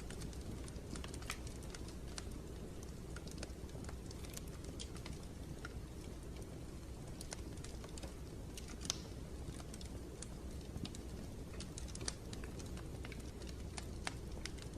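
Steady low rumbling noise bed with scattered, irregular sharp clicks and crackles on top, one a little louder about nine seconds in.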